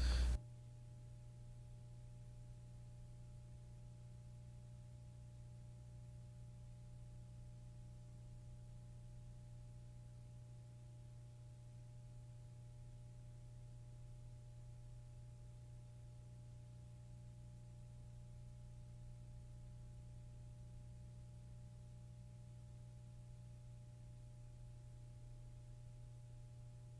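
Faint steady low hum, with two fainter steady higher tones above it and no other sound.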